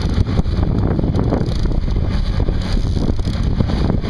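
Wind buffeting the microphone over the steady low rumble of a trolling boat under way on open water.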